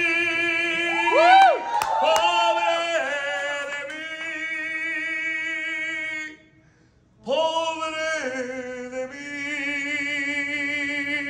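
A man singing a Spanish-language love song unaccompanied into a handheld microphone, holding long notes with vibrato. He breaks off briefly about six seconds in, then takes up another long held note.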